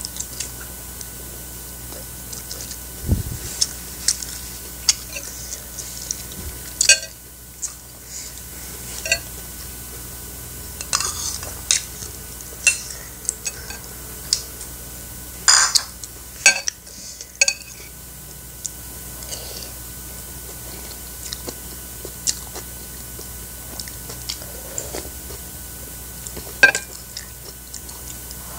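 Close-up eating sounds: chewing boiled chicken, with scattered sharp clinks of a metal spoon against a ceramic soup bowl and plate as soup is scooped, over a faint steady hum.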